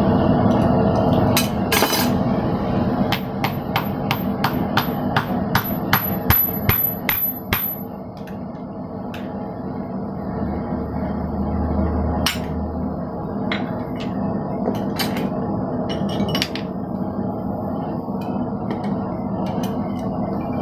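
Hammer blows on hot steel at the blacksmith's anvil, over a steady background hum. After two strikes, a fast run of about three blows a second lasts about five seconds. A few scattered blows follow.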